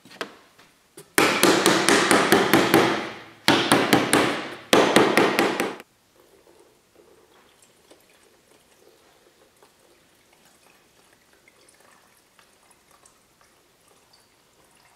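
Rapid, loud metallic clattering in three bursts from a metal paint can being handled, then paint poured quietly from the metal can into a mixing cup.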